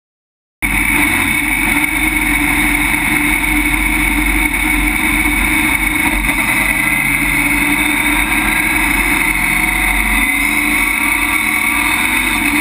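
A stock race car's engine running loud and steady, heard from inside the cockpit, its pitch hardly changing. The sound cuts in abruptly about half a second in.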